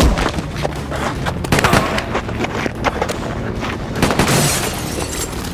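Handgun gunfire in a shootout: many sharp shots close together over the first two seconds, then scattered shots, with a longer noisy burst about four seconds in.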